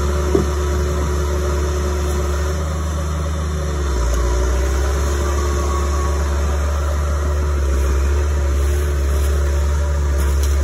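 Diesel engine of a heavy logging machine running steadily, picking up slightly about four seconds in.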